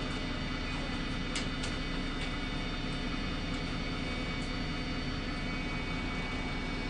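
Cabin sound of an MAN 18.220 single-decker bus with an Alexander Dennis ALX300 body: a steady high-pitched whistle of several tones over the low engine drone. There are a few light rattles about one and a half to two seconds in.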